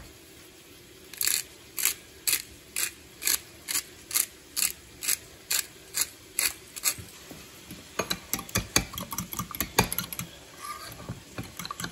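Hand-held pepper mill grinding black pepper, a short crunching ratchet click about twice a second for about six seconds. From about eight seconds in, a spoon beating eggs in a ceramic bowl, with rapid clinking and scraping.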